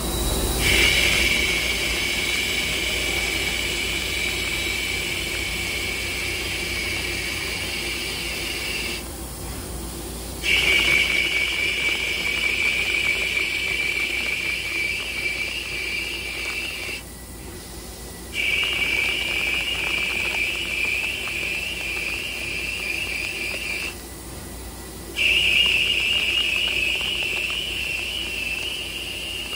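CNC lathe rough-turning a bar under coolant in a G71 roughing cycle: a steady high whine while the tool is in the cut. The whine breaks off for about a second three times, between roughing passes.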